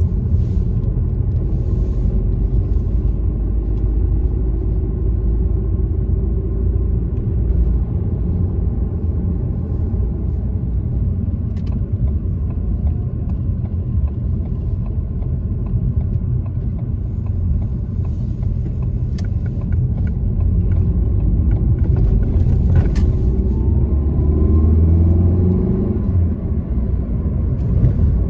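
Road noise heard from inside a moving car: a steady low rumble of engine and tyres on a wet road. About three-quarters of the way through, the engine note rises as the car picks up speed.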